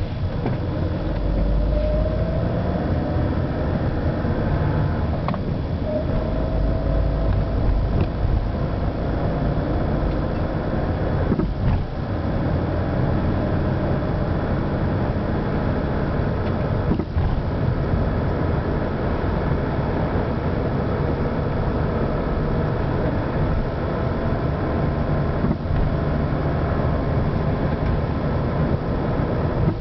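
Peugeot 307 running with a steady low drone and a faint whine, broken by a few short sharp knocks several seconds apart, one of them about twelve seconds in: the noise fault the owner points to.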